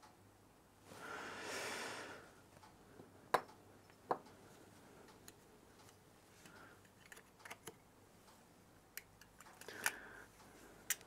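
Faint clicks and taps of small metal instrument parts as a petrol gauge's bezel ring, screws and a screwdriver are handled on a workbench. The two sharpest clicks come about three and four seconds in and a run of lighter ones near the end, with a short soft hiss about a second in.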